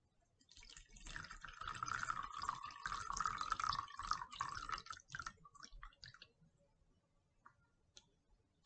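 A thick mixture of powdered herbs and vinegar pouring from a glass jar into a cotton cloth strainer over a glass jar, splashing and trickling for about five seconds. It thins out about six seconds in to a few scattered drips and clicks.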